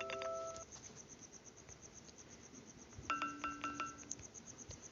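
Smartphone keyboard keypress sounds being previewed: a short pitched chime that fades within about half a second, then about five quick pitched tap sounds in a row about three seconds in.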